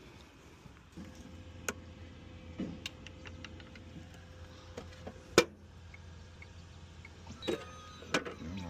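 A car being switched on and handled: a click about a second in, then a low steady hum that carries on, with scattered clicks and one sharp knock about halfway through.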